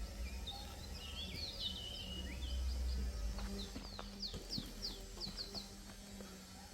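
Small songbird singing outdoors: high twittering chirps, then a run of quick, short down-slurred notes about four seconds in, over a steady low rumble.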